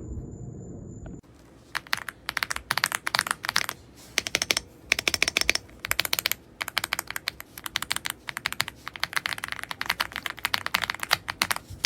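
Fast typing on an AULA F75 Pro mechanical keyboard with pre-lubed Reaper switches: rapid key clacks in bursts with short pauses. It starts about a second in, when a low hum with a faint high whine cuts off.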